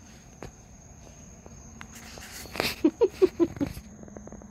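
Night insects calling with a steady high-pitched note throughout. Midway through comes a quick run of five or six short, loud vocal sounds.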